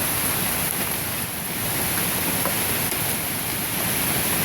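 Hailstorm: marble-sized hailstones pelting down with rain as a dense, steady hiss, with a few scattered ticks of stones striking.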